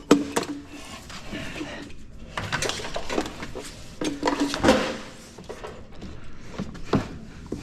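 Metal parts and hardware clinking and clattering as they are handled, a series of irregular light knocks and clinks.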